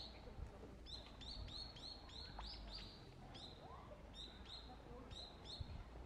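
Eurasian tree sparrow chirping: about a dozen short, high chirps in quick runs, with a short pause midway.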